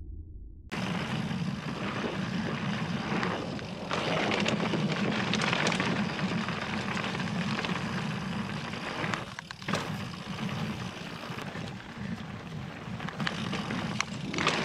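Mountain bike riding a rough trail, with a steady rush of wind over the action camera's microphone and frequent small knocks and rattles from tyres and frame. It starts abruptly less than a second in.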